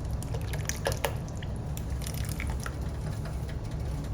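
Heavy cream being poured into a hot skillet of cooked sausage: liquid pouring and dripping with scattered small pops and ticks over a steady low rumble.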